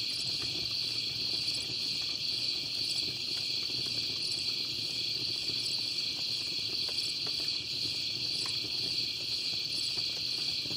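Steady chorus of night insects, a constant high trill, with a few faint crackles from the campfire.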